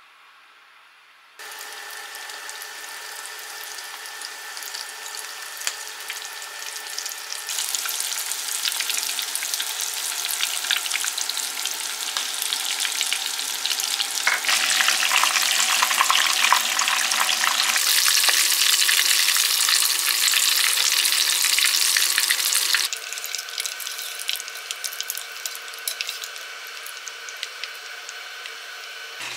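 Panko-breaded oysters deep-frying in hot oil, a dense crackling sizzle. It starts suddenly about a second in and changes level abruptly a few times, loudest in the middle stretch.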